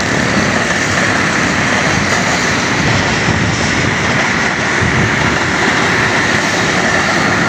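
Passenger train rolling past on the track: a steady, loud rush of wheels on rail and coaches.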